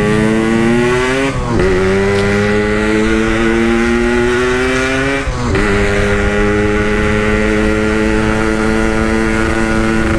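Yamaha RX-King's 135cc two-stroke single running through a standard-style aftermarket exhaust while riding. It pulls up in revs, drops sharply as it shifts up about a second and a half in and again around five and a half seconds in, then runs at fairly steady revs.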